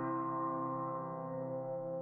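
Background music: a held chord that slowly fades.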